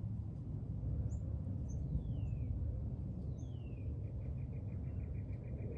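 Wild birds calling outdoors: a few short high chirps, two long falling whistles, then a rapid trill of about eight notes a second starting about two-thirds of the way in. A steady low rumble runs underneath.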